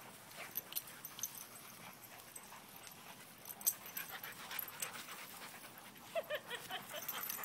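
Labrador retrievers panting as they play-fight, with scattered small scuffling clicks and a few brief whines about six seconds in.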